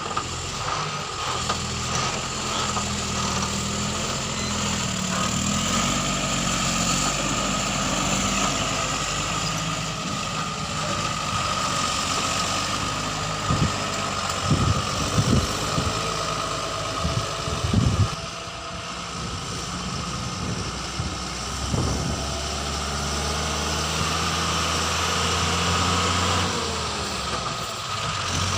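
Heavy diesel engine of a JCB 3DX backhoe loader running steadily at work, with several short heavy thumps about halfway through.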